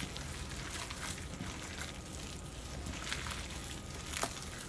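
Gloved hands mixing a ground turkey meatball mixture in a bowl: faint squishing with scattered small clicks, and one sharper click a little before the end.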